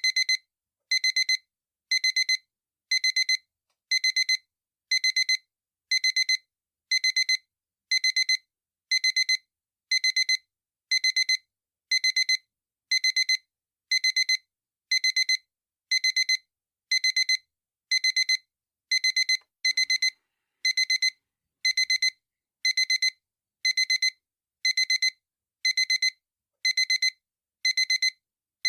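Digital alarm clock beeping: short, high-pitched electronic beeps in pairs, about one pair a second, repeating evenly.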